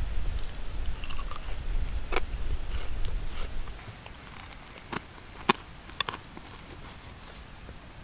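Steel knife and wooden fork cutting through fried food in a cast iron skillet: a few sharp clicks and scrapes of the blade against the iron, the loudest about five and a half seconds in. A low rumble underneath stops about four seconds in.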